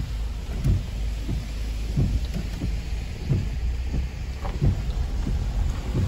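Rain hitting the car's roof and windshield, heard from inside the cabin as irregular dull thuds over a steady low rumble of the car rolling slowly across wet ground.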